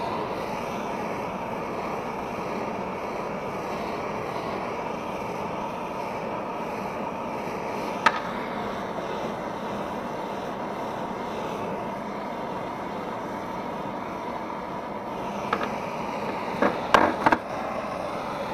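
Handheld propane blowtorch burning with a steady hiss as its flame scorches a strip of wood to darken it. A single sharp click about eight seconds in and a few quick knocks near the end.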